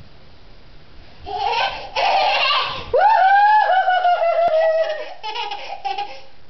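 Toddler laughing loudly, starting a little over a second in and breaking into a long, high squealing laugh about three seconds in, then a few shorter giggles.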